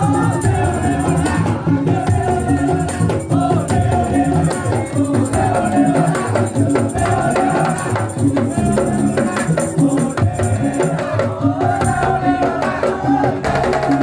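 Madurese ul-daul (tong-tong) music playing: a dense, steady beat of percussion with jingling rattles under a wavering melody line.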